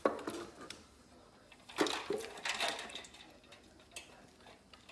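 Stainless steel dog bowls in a raised wooden stand clanking and knocking as a puppy climbs into them. It comes as a handful of irregular sharp knocks and clinks, the loudest about two seconds in.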